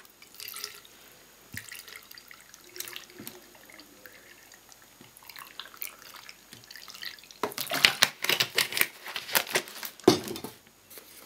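Water dripping and trickling into a glass jar packed with carrot pieces, with scattered light clinks, then a run of louder knocks and clatter in the last few seconds.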